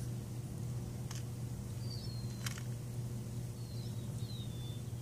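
Steady low hum of outdoor background noise, with short high chirps from small birds a few times and two faint clicks.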